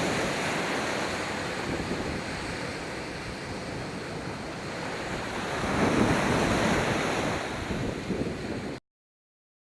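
Steady rushing noise of wind buffeting the microphone over surf. It swells a little past the middle, has a few faint pops near the end, then cuts off abruptly.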